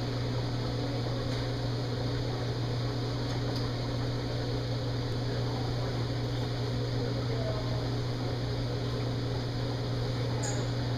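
Steady hum of running machinery: a constant low tone over an even hiss, unchanging throughout, with a faint short chirp near the end.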